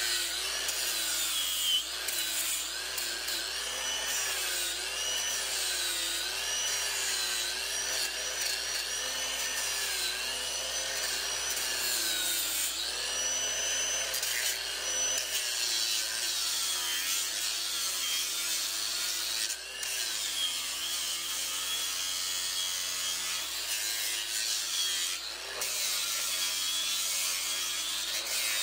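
Cordless angle grinder with a yellow sanding disc grinding down a horse's hoof. The motor whine wavers up and down in pitch as the disc is pressed onto and eased off the hoof, over a steady rasping of horn being abraded.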